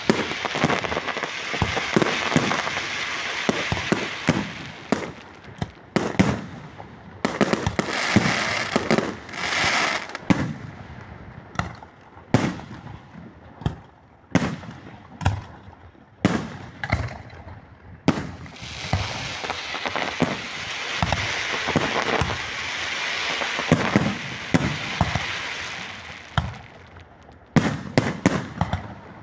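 Fireworks going off: many sharp bangs, with long stretches of dense crackling. Between those stretches the bangs come singly with gaps.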